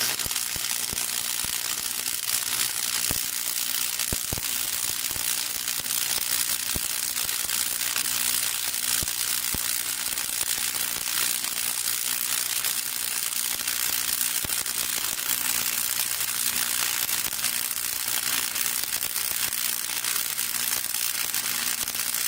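Gasless flux-core MIG welding with a 130 MIG welder and Lincoln flux-core wire: the arc crackles and sizzles steadily as a continuous bead is run, starting abruptly, with a faint low hum underneath.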